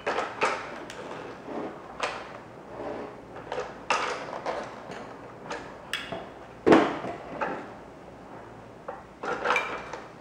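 Irregular plastic clicks and knocks as the floor head and body of a BISSELL PowerEdge Pet vacuum are handled and pushed together. The loudest knock comes about two-thirds of the way through.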